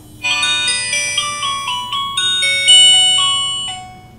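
Kids' smartwatch phone playing its power-on melody: a quick run of bright, bell-like chiming notes that starts about a quarter second in, is loudest about two-thirds through, and dies away near the end.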